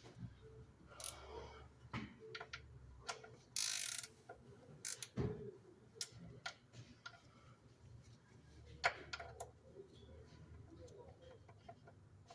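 Scattered clicks and metallic clinks of hand tools and sockets being handled and tried on bolts, with a brief rushing rustle about four seconds in.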